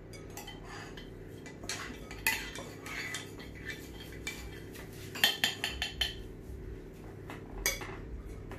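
Kitchen utensil clinking and scraping against a mixing bowl as brownie batter is poured in and stirred, with a quick run of clinks about five seconds in.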